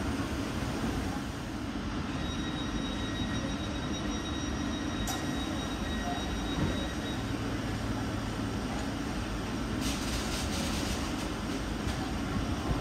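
Thameslink Class 700 electric multiple unit drawing to a stop and standing at the platform, its onboard equipment humming steadily. A faint high whine lasts a few seconds, a sharp click comes about five seconds in, and a hiss starts about ten seconds in.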